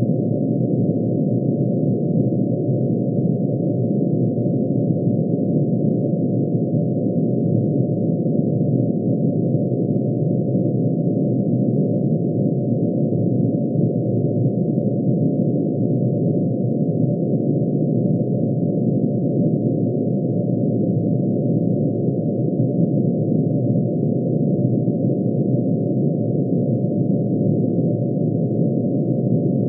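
Synthesized sound of mercury's atomic emission spectrum: many sine tones, one for each spectral line, shifted down into hearing range and sounding together as a dense, steady low drone.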